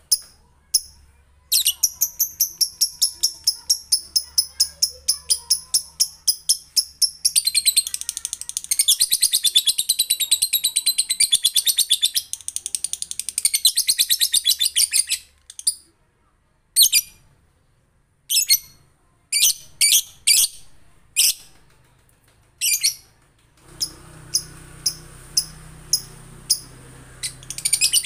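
Male lovebird (Agapornis) chattering in its long 'ngekek' song: a long run of rapid, evenly repeated high-pitched chirps, then scattered single chirps, then another rapid run starting near the end.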